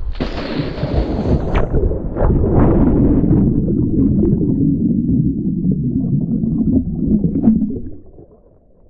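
A person falling backwards into a swimming pool with a splash, then muffled rushing and bubbling heard through a camera microphone held underwater with him; it fades about eight seconds in as he comes back up.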